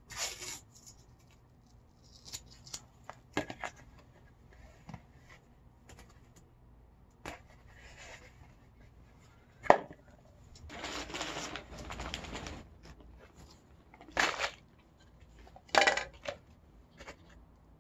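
Masking tape being pulled off the roll and torn, amid light clicks and knocks of black plastic nursery pots being handled. A sharp knock a little before halfway is the loudest sound, followed by a rasp of about two seconds and two short rasps near the end.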